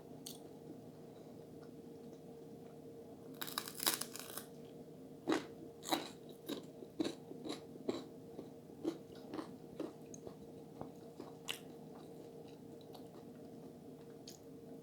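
Close-miked eating: a crunchy bite of crisp food about three and a half seconds in, followed by chewing with scattered sharp clicks, over a faint steady hum.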